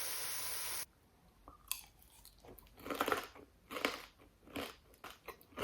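A steady hiss that cuts off sharply about a second in, then close-up chewing of crispy smashed potatoes: a run of irregular short crunches.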